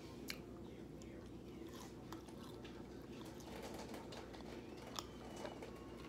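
Faint chewing of cheese-covered waffle fries, with scattered small wet clicks and smacks.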